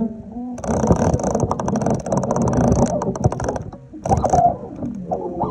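Fishing reel clicking in a fast, steady run of ticks while a hooked carp is fought on the line. The ticking starts about half a second in, stops about three seconds in, and comes back briefly around four seconds.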